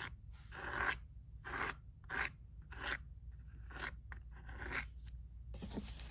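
Plastic palette knife scraping thick stencil butter paste across a tile in repeated strokes, about one every two-thirds of a second, followed near the end by a soft rustle.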